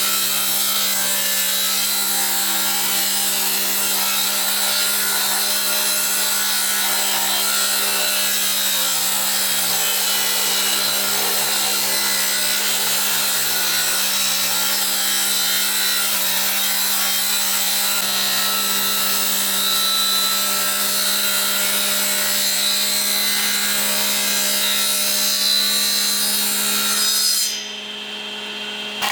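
A power tool sawing wood, running steadily with a constant hum under the cutting noise, then cutting out a couple of seconds before the end.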